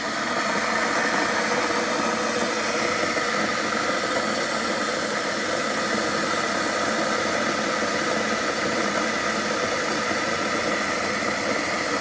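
RAF stainless-steel electric kettle heating water: a steady, loud rushing hiss with faint high tones in it. The owner finds the noise of the kettle working far too loud.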